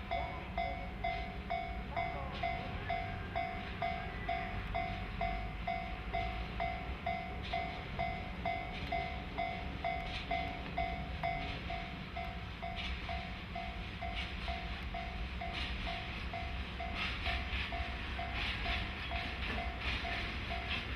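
Level-crossing warning bell ringing about twice a second over the low rumble of a JNR DE10 diesel-hydraulic locomotive. From about two-thirds of the way in, clattering and rattling grows as the train of tank cars rolls by.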